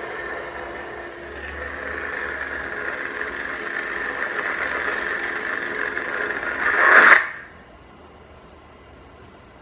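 Crossguard lightsaber prop's electronic hum playing through its built-in speaker, growing louder, then a brief swell and a sharp cut-off about seven seconds in as the blade powers off.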